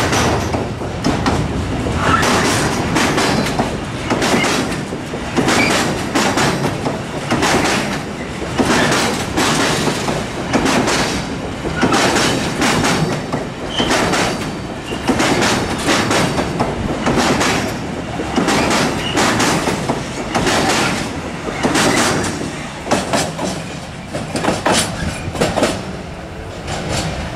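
Container flat wagons of a freight train rolling past close by, their wheels clattering over the rail joints roughly once a second, with an occasional brief squeak. The clatter eases a little near the end as the last wagon moves off.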